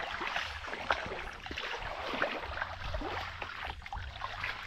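Footsteps wading and splashing through shallow swamp water, an uneven run of sloshes and small splashes, with low rumbling from a moving, hand-held microphone.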